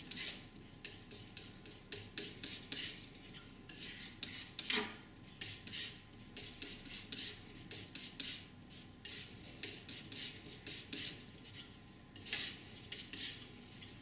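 Steel painting knife scraping and tapping on a palette, mixing oil paint: a quiet run of short scrapes at about two a second. A louder scrape with a brief downward squeak comes about five seconds in.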